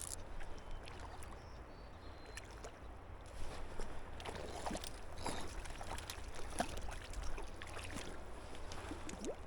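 River water moving and lapping, with small scattered splashes and light clicks.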